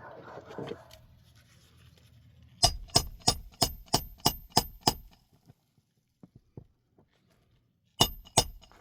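A run of sharp clinking taps with a bright ring, about three a second for a couple of seconds, then two more taps near the end.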